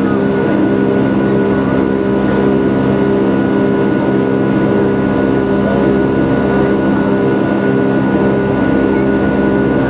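Airbus A321-211 cabin noise during the climb after takeoff: the CFM56 turbofan engines drone steadily, heard from inside the cabin as an even rush with several constant hum tones.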